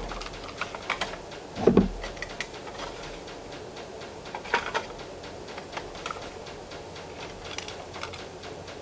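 Scattered small clicks and taps of scuba regulator first-stage parts being handled and set down during a bench rebuild, with one louder, lower bump a little under two seconds in.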